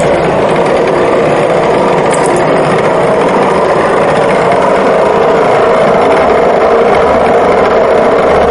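Sink full of water draining through the open plug hole of a stainless-steel kitchen sink, swirling down in a vortex with a steady, loud rush.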